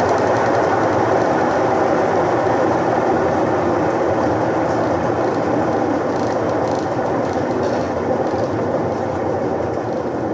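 Electrolux washing machine running with a loud, steady mechanical racket that eases slightly toward the end. The repairer treats this noise as a fault still to be cured.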